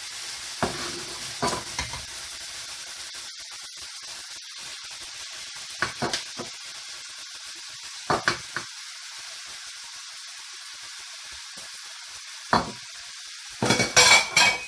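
Grated carrot, onion and garlic sizzling steadily in olive oil in a frying pan, with a wooden spatula knocking and scraping against the pan in short bursts, the loudest near the end.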